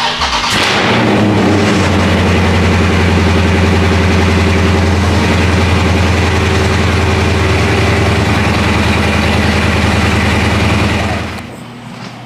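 Dodge Charger Scat Pack's 6.4-litre HEMI V8 with long-tube headers running loud at a steady, fairly low engine speed, then dropping away about eleven seconds in.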